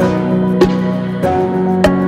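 Background music: a gentle instrumental piece of held notes with a steady beat.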